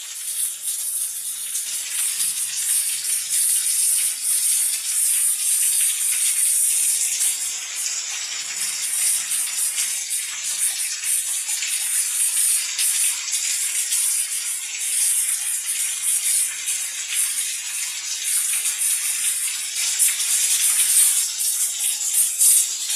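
Water spraying steadily from a homemade PVC-pipe rain shower head, a continuous hiss of falling jets.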